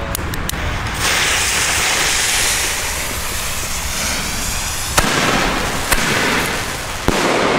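A torch lighter clicks a few times, then a loud hiss rises as the fuses of two fireworks in a launch rack burn and the fireworks lift off. Three sharp bangs follow in the sky, about five seconds in, a second later, and near the end.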